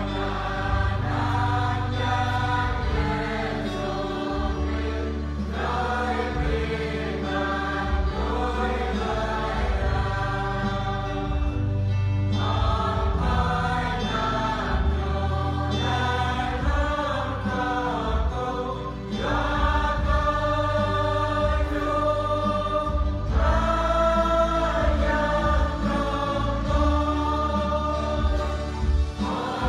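Church choir singing a hymn in phrases of a few seconds each, over low, steady bass notes from the accompaniment.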